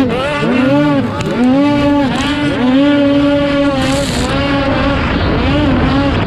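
Ski-Doo snocross race sled's two-stroke engine at racing speed, heard from on board: the pitch swings up and down again and again as the throttle is worked over the bumps, holds steadier for about a second and a half mid-way, and turns rougher and noisier near the end.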